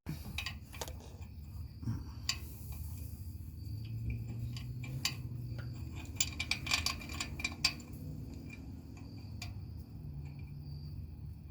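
Scattered light metallic clinks and taps of hand tools and a bolt being handled, busiest around the middle, over a faint steady chirping of crickets.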